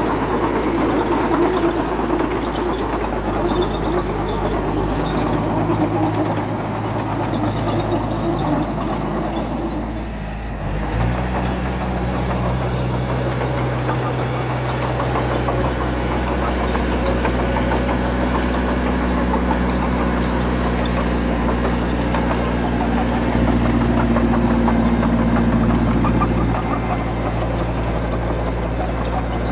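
Heavy-equipment diesel engine running steadily under work. Its note dips briefly about ten seconds in, then settles into a different steady pitch.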